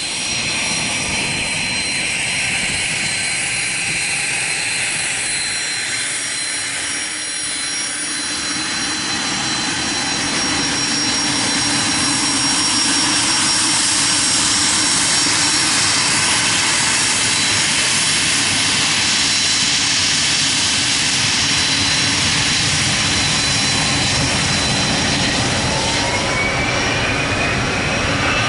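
Business-jet turbofan engines running as the jets taxi: a loud jet rush with steady high whines, growing louder about a third of the way in. Near the end a whine rises in pitch as an engine spools up for takeoff.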